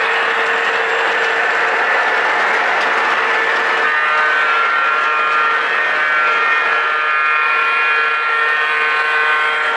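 O gauge model train running on the layout: a steady rolling rumble over a constant hum. About four seconds in, a cluster of steady high tones joins in and holds.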